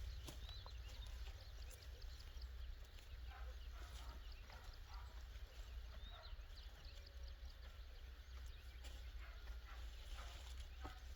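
Faint short chirping animal calls with scattered clicks over a low steady hum.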